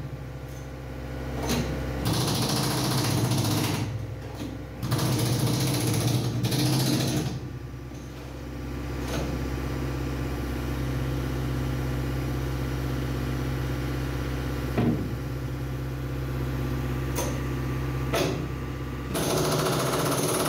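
Chipping hammer rattling against hardened concrete inside a steel transit mixer drum, in runs of a few seconds: about two seconds in, again around five seconds in, and near the end. In the long pause between, a steady machine hum continues with a few single knocks.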